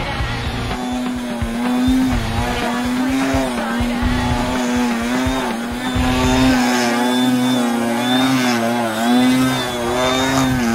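Electric brushless motor and propeller of a foam 3D RC plane hovering: a steady buzzing whine whose pitch wavers up and down as the throttle is worked to hold the hover.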